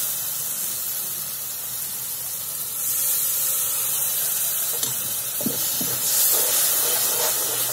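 Spiced onion-tomato masala sizzling in hot oil in a steel kadhai, the sizzle growing louder about three seconds in as water is poured into the pan. A steel ladle stirs and scrapes the pan, with a couple of light knocks.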